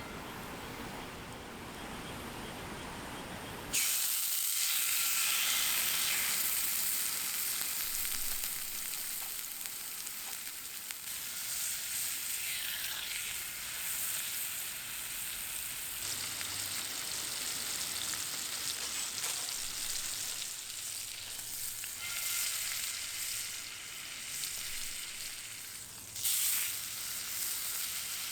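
Food sizzling in hot fat in a frying pan, starting suddenly about four seconds in as it goes into the pan, with a fresh burst of sizzling near the end.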